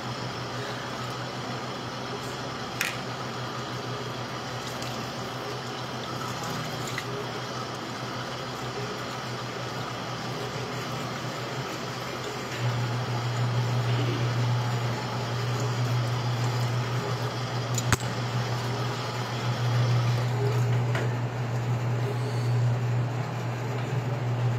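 Tap water running steadily into a metal strainer of dried petals over a steel sink, with a few faint clinks of the spoon against the strainer. A low hum underneath gets noticeably louder about halfway through.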